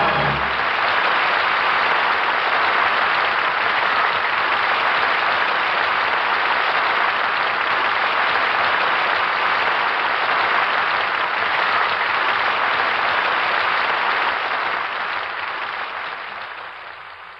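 Studio audience applauding steadily as the closing music ends, fading out over the last few seconds.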